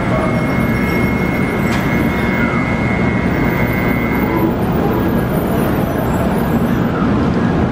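Steady rumble of Shinkansen trains at a station platform, with a train on the next track moving slowly past. A thin, steady high tone runs over it and stops about four and a half seconds in.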